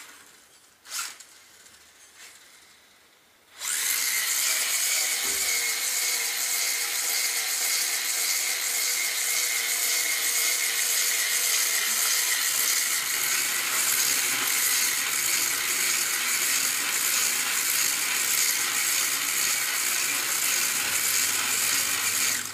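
Small electric motor of an RC car running at high speed with a steady high-pitched whine as it spins donuts, starting suddenly about three and a half seconds in. Two sharp clicks come before it in the first second.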